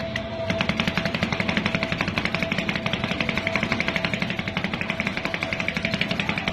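Two metal spatulas chopping rapidly against the frozen steel pan of a fried ice cream roll machine, a fast, even clatter of many strikes a second as the ice cream mix is mashed on the cold plate. A steady tone runs underneath.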